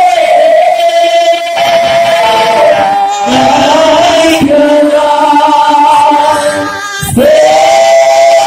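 Congregation singing a worship song together, loud, with long held notes that shift in pitch and a brief break about seven seconds in before a new line starts.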